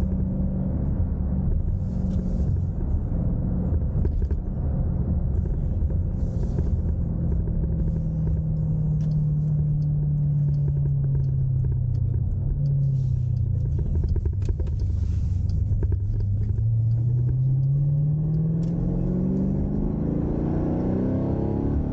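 Dodge Durango SRT 392's 6.4-litre HEMI V8 under way, its exhaust drone sinking slowly in pitch through the first two-thirds as the truck eases off. It then climbs steadily over the last few seconds as the truck accelerates again.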